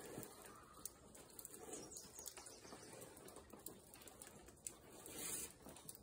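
Near silence: faint outdoor background with a few soft clicks and a brief hiss about five seconds in.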